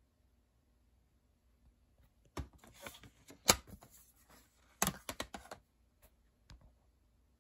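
Plastic CD jewel case being closed and handled in the hands: a run of sharp plastic clicks and clatter, the loudest snap about three and a half seconds in and another burst of clicks around five seconds, then one small click.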